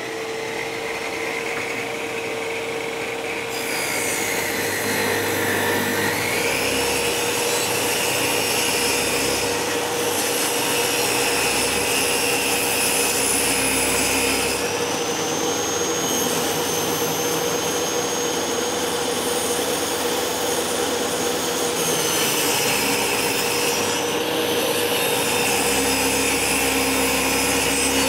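Table saw running with a steady whine while its blade rips a thin strip off the rounded edge of a length of wood. The sound of the cut changes several times as the wood is fed through.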